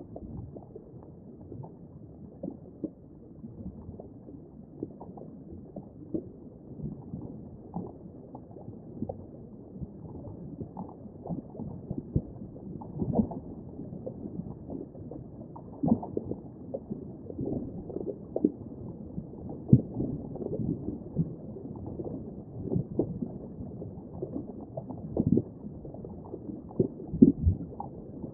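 Muffled underwater ambience: a dull, deep gurgling wash dotted with irregular soft pops and bubbles.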